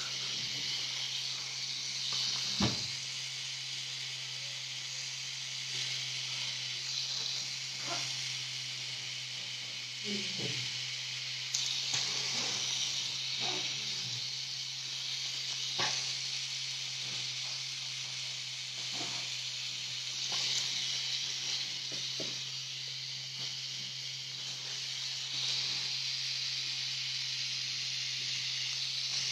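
Pen-style tattoo machine running steadily, a low hum under a constant hiss, with scattered soft clicks and rubs from gloved hands and a paper towel wiping the skin.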